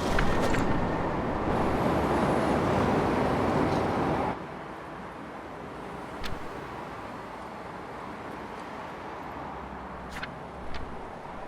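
Loud, dense vehicle noise that cuts off abruptly about four seconds in. What remains is quieter steady street traffic ambience with a few light clicks.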